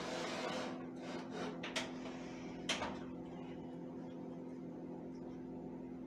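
Oster French door countertop oven being loaded and set: a soft scrape, then a few sharp clicks and a knock in the first three seconds, typical of its doors shutting and the timer being turned. A steady low hum runs underneath.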